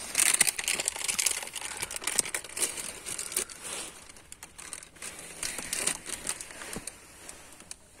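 A plastic snack packet of coated peanuts being opened and crinkled in the hands: dense rustling and crackling, busiest in the first few seconds and thinning out near the end.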